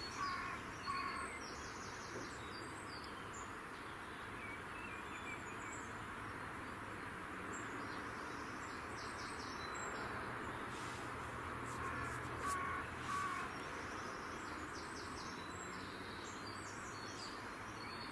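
Open-country ambience: a steady background hiss with small birds chirping and singing on and off.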